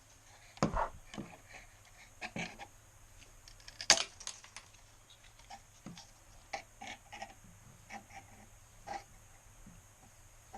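Scattered light clicks and taps from handling a plastic bottle and small hand tools, with sharper knocks about a second in and about four seconds in.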